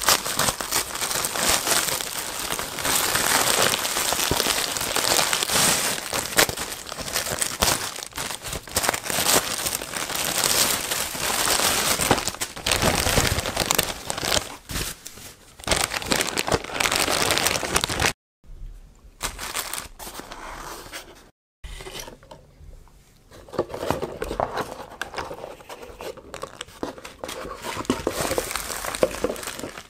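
Plastic mailer and plastic bags crinkling and tearing as a parcel is slit open with a knife and unpacked, with cardboard box flaps handled. The sound cuts out completely twice, briefly, a little past the middle.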